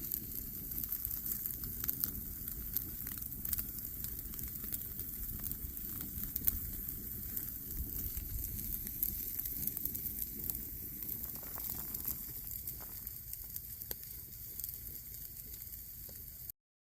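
Wood fire crackling, with scattered sharp pops over a steady hiss and a low rumble; the sound cuts off suddenly near the end.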